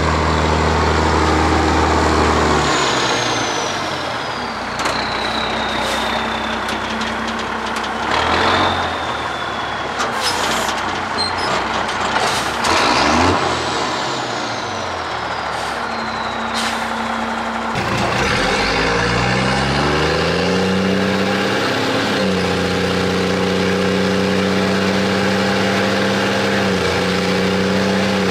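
Straight-piped P-pump Cummins 6CTA 8.3 diesel with a non-wastegated HX40 turbo pulling hard under a heavy load of water, with a turbo whistle that falls in pitch twice. About two-thirds of the way in, the engine climbs in pitch in steps and then holds a steady drone.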